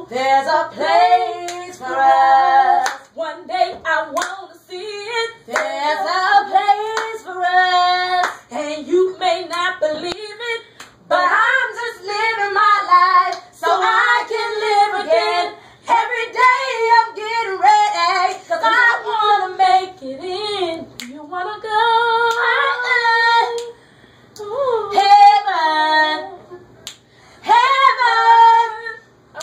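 A woman singing a cappella, in phrases of a few seconds with short breaths between them, her voice sliding and bending between notes.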